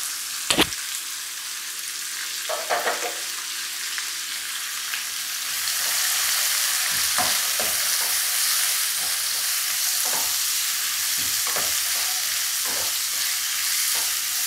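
Sliced onions, green chillies and shallots sizzling in hot coconut oil in a non-stick wok, with a sharp knock about half a second in. The sizzle grows louder about halfway through as a wooden spatula stirs them, its strokes knocking against the pan now and then.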